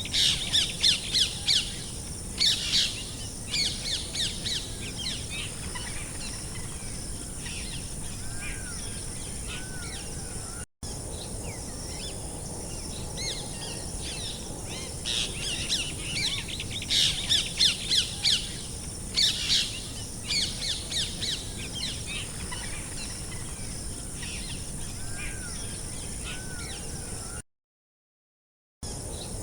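Birds chirping and calling in quick clustered bursts over a steady outdoor background. The sound cuts out briefly twice.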